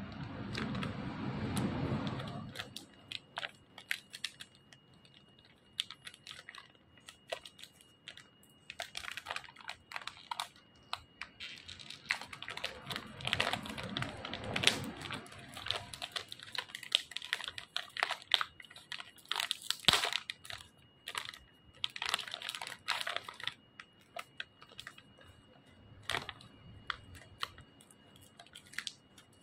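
Clear plastic bag crinkling and crackling as fingers pick at it to open it, in irregular clusters of sharp crackles with quieter gaps between.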